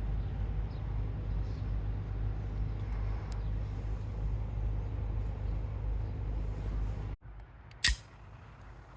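A steady low rumble breaks off abruptly, then a single sharp shot from a Benelli B76 pistol comes about eight seconds in.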